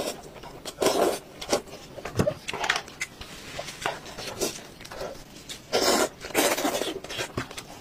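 Close-miked eating of braised sheep head: wet slurping and sucking of meat off the bones, with chewing, in irregular bursts. The loudest bursts come about a second in and again around six seconds in.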